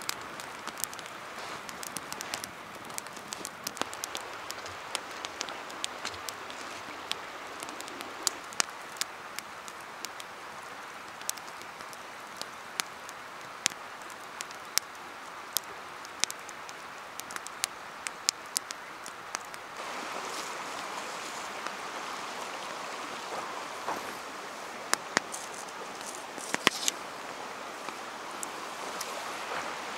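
Steady rain falling, with many irregular sharp drop hits over it; it gets a little louder about twenty seconds in.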